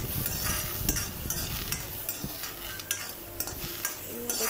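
Soaked peanuts being dry-roasted in a steel kadai and turned with a spatula: repeated scraping and rattling of the nuts against the pan over a low sizzle as their water cooks off.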